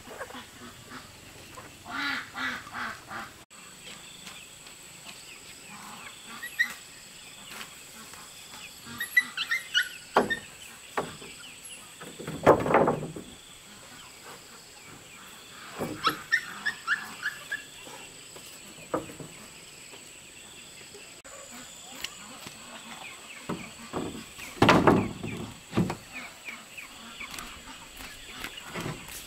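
Wooden boards knocking and scraping as they are handled, with two louder thuds and birds chirping in between.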